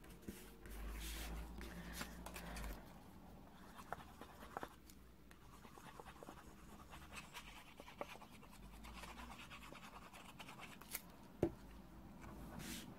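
Faint rustling, light taps and soft clicks of cardstock and patterned paper being handled and pressed down on a craft mat, with a low rumble for the first few seconds.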